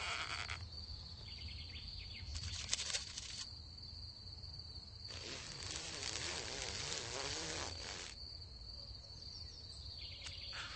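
Insect sounds: a steady high-pitched cricket-like trill throughout, with buzzing, rustling bursts, a short one about two and a half seconds in and a longer one from about five to eight seconds.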